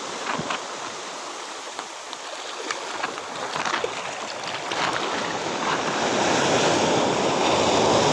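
Sea waves washing at the shore, a steady rushing that swells louder in the second half, with a few faint clicks over it.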